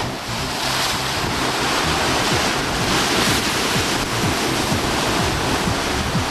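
Ocean surf surging and breaking over a rock shelf, with wind buffeting the microphone; the wash swells loudest about three seconds in.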